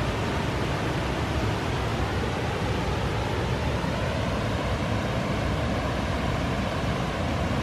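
Steady rushing of water spilling over the rim of a lake's bell-mouth overflow spillway and falling into its shaft, as the lake sits at its overflow level.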